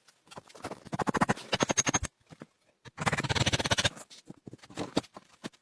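Two runs of rough scraping, each about a second long and made of many fast clicks, about a second in and again about halfway. Scattered short scrapes and clicks follow.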